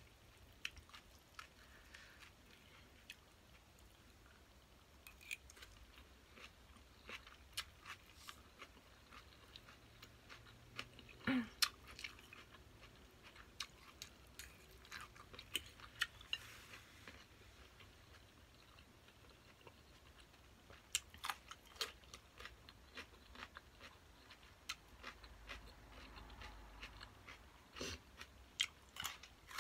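Quiet close-up chewing and crunching of glass noodle salad and raw cucumber, with many scattered sharp clicks throughout. One brief hum-like vocal sound comes a little over a third of the way in.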